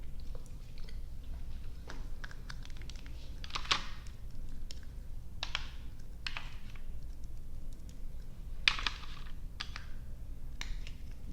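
Close-up chewing of sticky gummy and marshmallow candy: irregular soft mouth clicks with a few louder sticky smacks.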